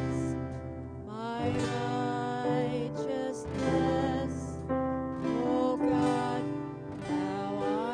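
Live worship music: a woman sings a slow melody with held and gliding notes, accompanied by acoustic guitar and electric keyboard.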